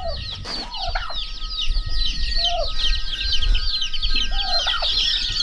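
A brood of young chicks peeping continuously in a brooder cage, many high piping calls overlapping, with a few lower calls from the broody hen among them. A brief rattle about half a second in, as the cage's wire-mesh door is opened.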